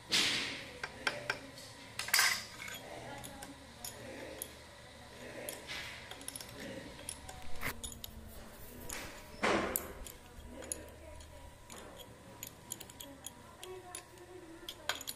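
Scattered metal clicks, clinks and knocks of hand tools and blade bolts on a wood planer's cutter block as its blades are fitted and tightened. The loudest knocks come right at the start and about nine seconds in.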